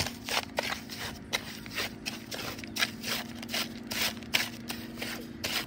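A hoe scraping and chopping through wet concrete mix in a mixing tub, in repeated strokes about two to three a second. A steady low hum runs underneath.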